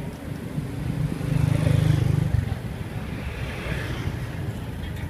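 Street traffic noise, with a motor vehicle's engine rumble swelling and fading as it passes, loudest about two seconds in.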